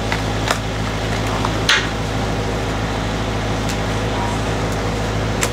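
A steady mechanical hum, with a few light clicks and one louder knock just under two seconds in.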